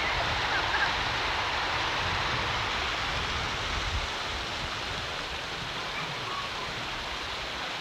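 Steady rush of flowing water, with a low rumble under it that eases about halfway through.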